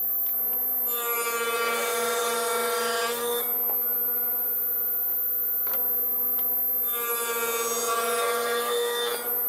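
Table saw running with a steady whine as its blade rips the edges of ash boards. The sound fills out during two cuts, one starting about a second in and another around seven seconds in.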